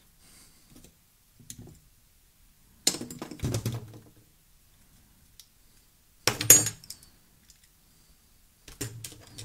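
Small metal and plastic parts of an ISSC MK22 trigger mechanism clicking and clinking as they are handled and fitted together by hand. The sound comes in a few short clusters of clicks; the loudest is about six and a half seconds in.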